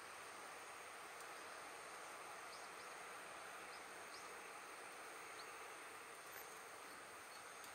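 Faint, steady hiss of a split-wood fire burning in a stainless steel fire box, with a few soft crackles. Insects chirp faintly in the background.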